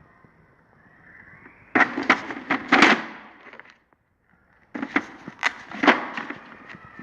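Metal tool chest drawers rolling open and shut on their slides, with the tools inside clattering. There are two bouts of knocks and rattles, the second after a brief gap.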